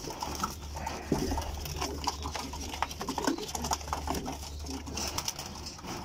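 Domestic pigeons cooing in a wire loft, with many small clicks and rustles of the birds and the cage being handled.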